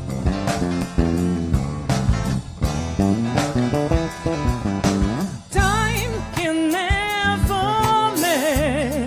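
Live band music: percussion hits and plucked-string bass and chords keeping a steady rhythm. About halfway through, a lead melody with vibrato comes in over it.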